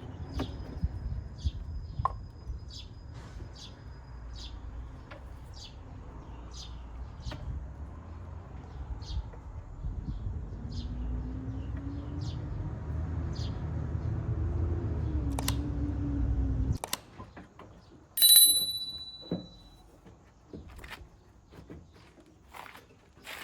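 A motor running with a low rumble, its pitch rising and falling, that cuts off suddenly about 17 seconds in. Short high chirps repeat over it in the first half, and a loud brief high beep follows the stop.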